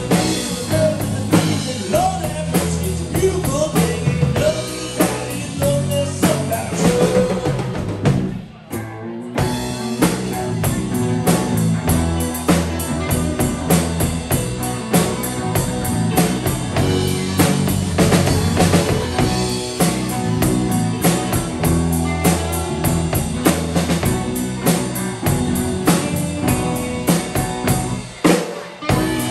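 Live rock band playing: drum kit, electric guitars, bass and keyboards together. The whole band stops for a moment about eight and a half seconds in and briefly again near the end.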